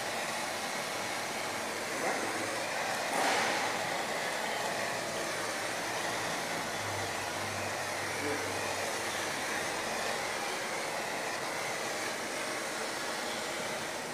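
Handheld propane torch burning with a steady hiss, with one brief louder rush about three seconds in, as its flame heats and shrinks heat-shrink tubing on a cable lead.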